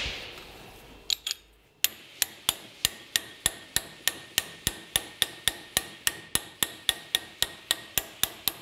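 Hammer striking a 36 mm socket used as a driver to seat a new seal cover on a Kia Sorento's transfer case. Two strikes about a second in, then an even run of taps, about three to four a second.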